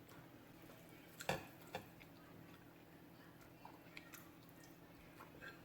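Faint eating sounds: quiet chewing with a few sharp clicks, the loudest about a second in and a second soon after.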